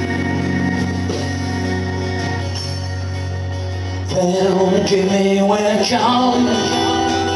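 Live rock band playing, with strummed acoustic guitar, electric guitar and keyboards over a steady low note. About four seconds in the music gets louder and a male voice comes in singing.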